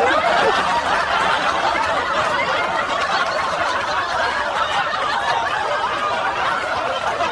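A group of people laughing together, many voices overlapping in a steady, continuous wave of laughter.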